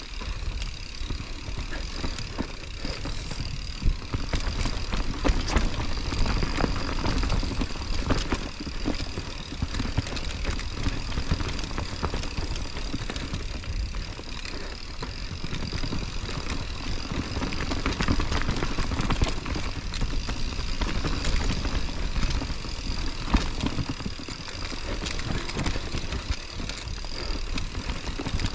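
Mountain bike descending a rough trail, heard from an action camera mounted on the rider or bike: a steady rumble of tyres on dirt with frequent sharp knocks and rattles from the bike over roots and rocks.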